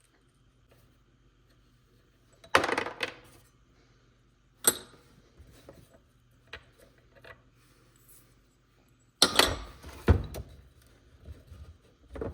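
Metal parts clinking and clattering on a workbench as an antique hand-crank bench grinder is handled: a clatter about two and a half seconds in, a sharp clink near five seconds, and a louder double clatter around nine to ten seconds, with small ticks between.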